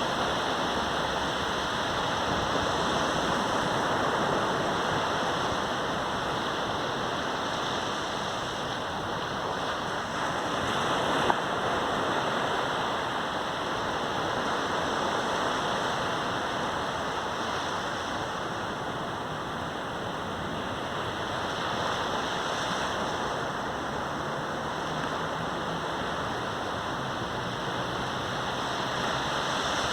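Sea surf washing onto a beach, heard as a continuous rushing that slowly swells and eases, picked up by a phone microphone. A single brief click sounds about eleven seconds in.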